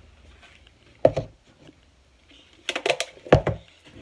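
Knocks and clatters of kitchen items being handled: one sharp knock about a second in, then a quick run of clicks and two heavier knocks near the end.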